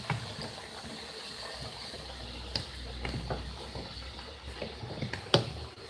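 A few knocks and clinks of pots and plastic containers being moved about in a kitchen cupboard, the sharpest near the end, over a steady hiss.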